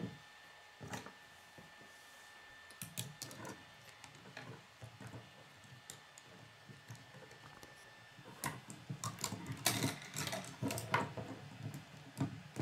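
Plastic K'nex rods and connectors clicking, snapping and rattling as they are handled and pushed together by hand: scattered light clicks, growing busier about eight seconds in.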